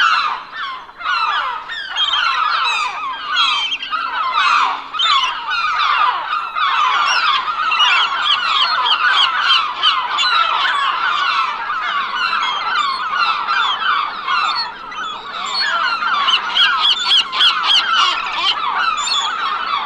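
A large flock of gulls calling together: many short, overlapping cries in a dense, unbroken chorus.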